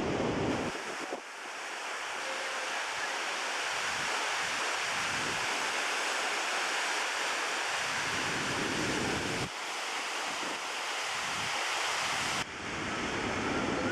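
Petrohué River waterfall and rapids rushing steadily, a continuous hiss of white water. The sound changes abruptly about a second in, near the nine-and-a-half-second mark and again near the end, as if cut between shots. Wind rumbles on the microphone in the first second and the last second or so.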